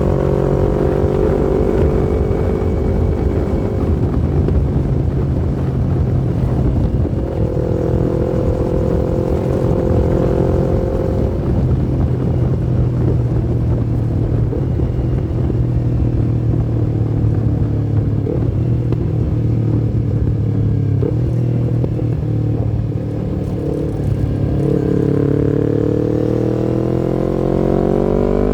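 Yamaha MT-25's parallel-twin engine running at steady revs, its pitch rising near the end as the revs climb.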